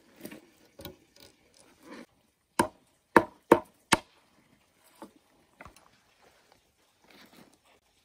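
A machete chopping a thin bamboo stick against a log: four sharp blows in quick succession about halfway through, with fainter knocks before and after.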